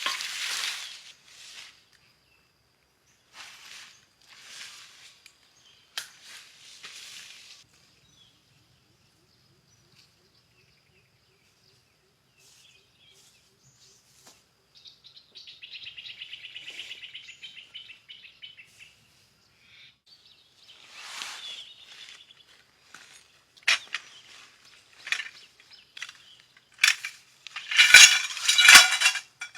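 Jungle ambience: scattered bird calls, including a rapid chirping trill about halfway through, between stretches of near quiet. Loud rustling and sharp clicks near the end.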